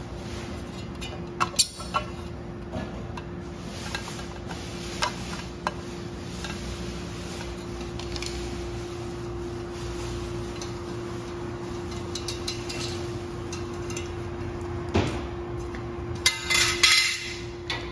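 Scattered metallic clinks and knocks of parts and hand tools being handled over a steady hum, with a short cluster of louder knocks near the end.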